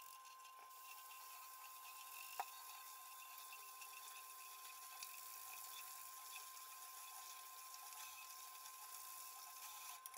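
Faint, steady hiss of hot tap water running while a small pack of mineral plant substrate is rinsed of its dust. One short click about two and a half seconds in.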